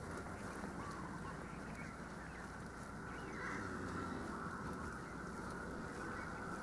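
Birds calling, short wavering chirps over faint, steady outdoor background noise.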